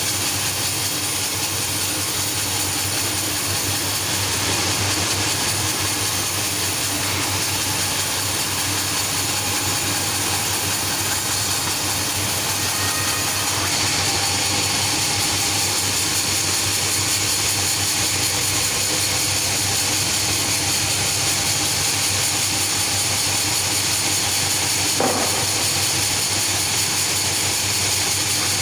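Sawmill machinery running steadily, a constant loud mechanical din with a hiss in the highs, and a short knock near the end.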